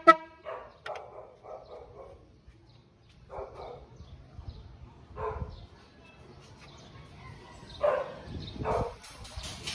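A dog barking, a series of short separate barks with gaps of a second or more between them.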